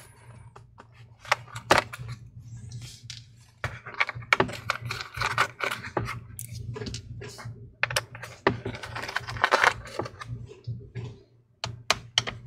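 Pentalobe P5 screwdriver working out the small bottom-case screws of a MacBook Air A2179: scattered light metallic clicks and short scrapes as the driver seats and turns and the screws are lifted out, under a steady low hum.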